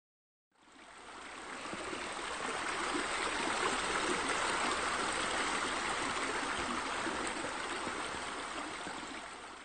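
Steady rush of flowing, splashing water, like a stream or a spillover into a pool. It fades in about half a second in and fades out near the end.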